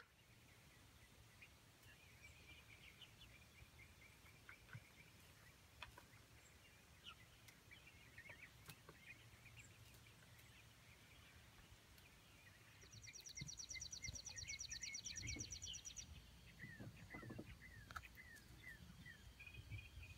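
Faint peeping and chirping of young chickens, with a run of short falling peeps near the end. A fast, high trill of evenly spaced pulses, about eight a second, sounds for about three seconds past the middle and is the loudest thing heard.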